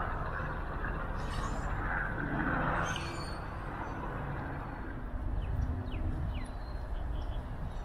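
Outdoor ambience: a steady low rumble with a background hiss, and a few faint, short high sweeps between about five and six and a half seconds in.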